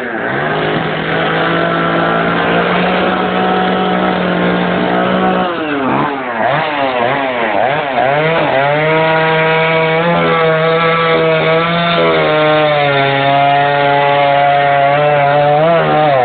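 Two-stroke chainsaw running at high revs while cutting through a chinaberry (paraíso) log. About five seconds in, the revs drop and rise a few times, then the saw holds steady at full throttle.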